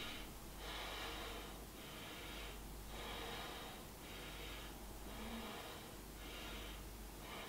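Faint deep breathing of a person holding a high lunge, each inhale and exhale a soft hiss that swells and fades about once a second.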